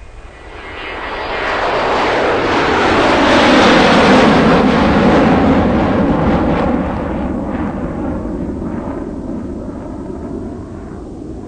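JCB 3DX backhoe loader's diesel engine running under load as its front bucket tips sand into a tractor trolley. A rushing roar builds over the first couple of seconds, is loudest about four seconds in, then eases off.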